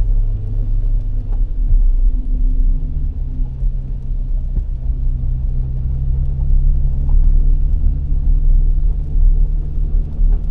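Low, steady rumble and drone inside the cabin of a GWM Cannon Alpha hybrid ute on the move while towing a 2.5-tonne boat, with a few low hums that shift slightly in pitch about three seconds in.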